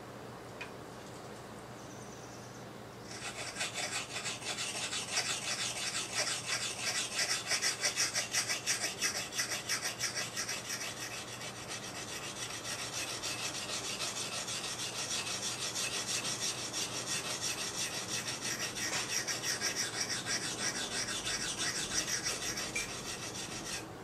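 Steel blade of a hand-forged nata (Japanese brush knife) being rubbed back and forth on a wet coarse synthetic whetstone, a rapid, even run of rasping strokes. It starts about three seconds in and stops just before the end.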